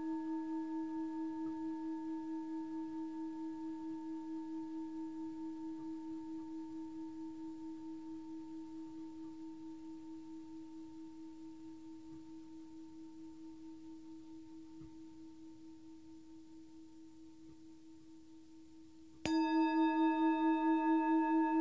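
Metal singing bowl ringing after a strike, a low tone with higher overtones that wavers in a steady pulse and slowly fades away. About nineteen seconds in it is struck again and rings out loud once more.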